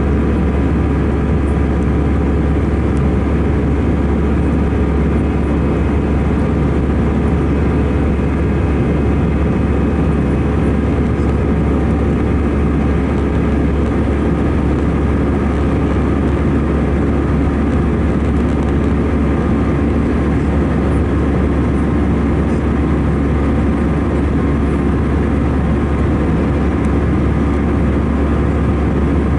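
Steady in-flight cabin noise of an Airbus A319-111: the CFM56 turbofan engines and rushing airflow make a constant deep roar with a layer of steady whining tones, unchanging throughout.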